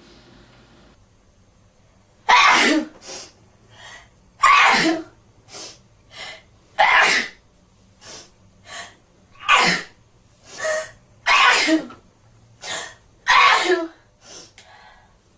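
A person sneezing repeatedly in a fit: six loud sneezes about two seconds apart, beginning about two seconds in, with short quieter sounds between them.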